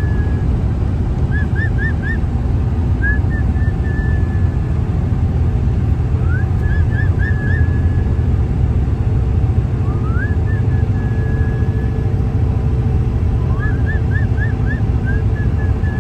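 Steady road rumble inside a moving car's cabin, with an emu's high whistling chirps in quick runs of three to five and, now and then, a rising whistle that levels off and holds for a second or two.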